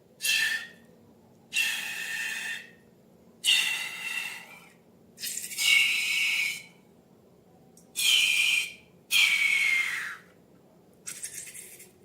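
Air hissing and squealing out of a stretched balloon neck in about seven short bursts, each with a faint whistling pitch. One burst, about ten seconds in, drops in pitch as it fades.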